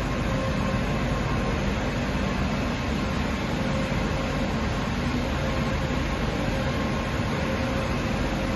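Deckel Maho DMC 100H horizontal machining centre running under power: a constant mechanical hiss with a faint steady whine, without change.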